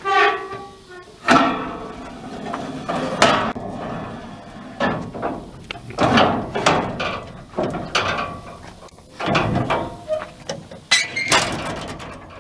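A series of irregular metallic clanks and knocks, some ringing briefly, from handling the panels, doors or steps of a harvesting machine.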